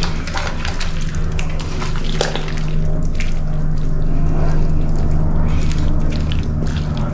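Thick meat-and-vegetable soup sloshing in an aluminium pot as a wooden spoon stirs it, with frequent knocks of the spoon against the pot. A steady low hum runs underneath.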